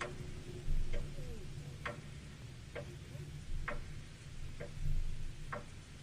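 Sharp, evenly spaced ticks, about one a second (seven in all), like a clock ticking, over a steady low rumble.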